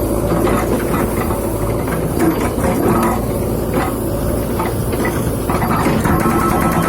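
Stone breaker hammer at work: a steady low machine rumble with a few separate knocks of the breaker on the rock, then rapid continuous hammering starting again about two-thirds of the way in.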